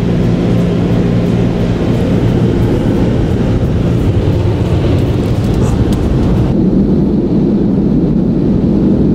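Automatic drive-through car wash running, heard from inside the car: a loud, steady rush of water spray over a low machinery rumble. About two-thirds of the way through the hiss drops away while the rumble continues.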